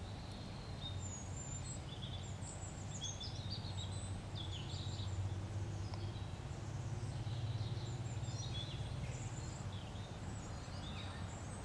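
Small birds chirping and twittering faintly, short high calls scattered throughout, over a low steady hum.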